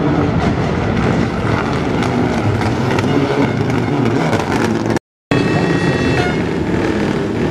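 Mitsubishi Lancer Evolution rally car's turbocharged four-cylinder engine running hard through a tyre chicane, its pitch rising and falling as the car passes close by. About five seconds in the sound cuts out for a moment, then engine noise carries on.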